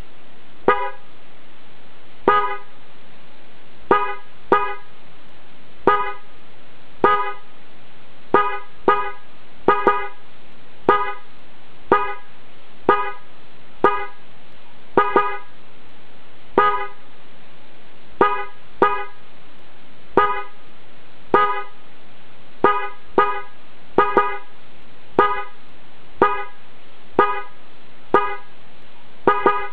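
A Honda genuine Mitsuba electric horn pair (UCH-253 high-tone and UCL-254 low-tone) tooted in about thirty short blasts at irregular intervals, some in quick doubles, over a steady background hiss.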